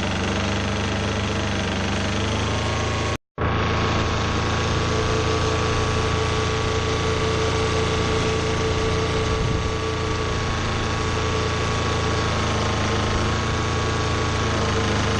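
A large engine runs steadily at a nearly constant speed, with slight shifts in pitch. The sound cuts out completely for a moment about three seconds in.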